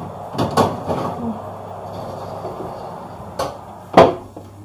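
Kitchen clatter: a few sharp knocks and clanks of cookware or utensils, the loudest just before the end, over a steady low hum.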